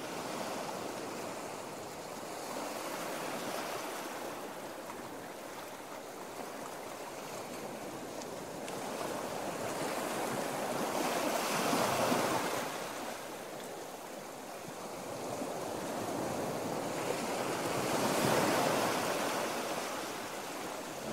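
Sea surf washing onto a sandy beach, a steady rush that swells and fades, loudest twice: about halfway and again near the end.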